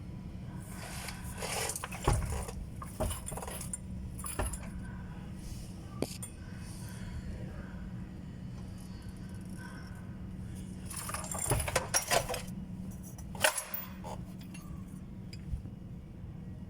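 Metal tools and parts clinking and jangling in scattered bursts during gearbox removal under a pickup, with a steady low hum underneath.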